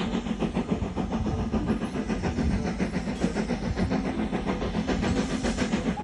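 Steam locomotive running under power, its exhaust chuffing in a fast, even rhythm over a steady mechanical hum; the sound cuts off abruptly at the end.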